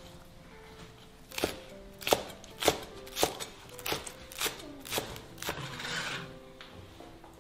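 Chinese cleaver chopping green onions on a wooden cutting board: about eight sharp chops, roughly two a second, then the blade scraping the chopped onion across the board near the end.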